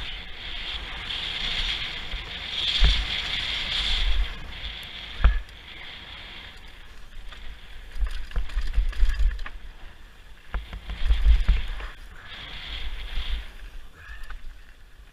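Mountain bike riding fast down a rough dirt and gravel trail, heard from a camera on the rider: a continuous rush of wind buffeting the microphone with tyres on loose ground and the bike rattling, swelling and fading with speed. Sharp knocks from the bike hitting bumps, the clearest about three and five seconds in.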